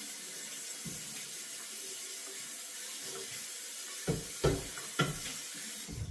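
Kitchen sink tap running steadily while a pot is washed under it, with three or four sharp knocks of the pot against the sink between about four and six seconds in. The water cuts off at the very end.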